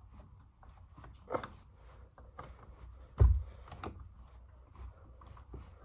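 Scattered small clicks and taps of a door closer's parts and tools being handled, with one louder, deep thump about three seconds in.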